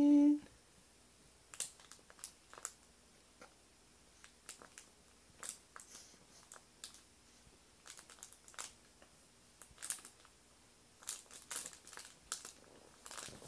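Faint, scattered crinkling and rustling as an infant shifts about on a crinkly fabric baby toy.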